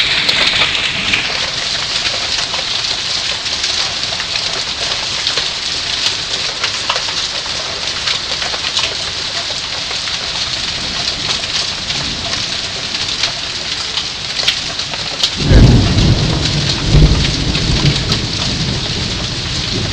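Heavy hail and rain pelting down, a steady dense patter of many small hard impacts. About fifteen seconds in, a loud thunderclap breaks in and rumbles for a few seconds.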